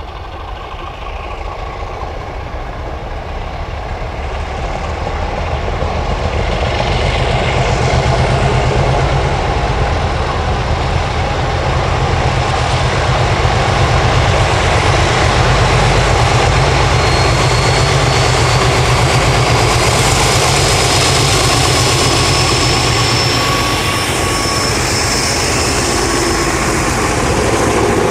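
Vintage diesel-electric locomotive engine running hard as it approaches, growing louder over the first eight seconds and then holding loud and steady. A thin high whine slowly rises in pitch through the second half.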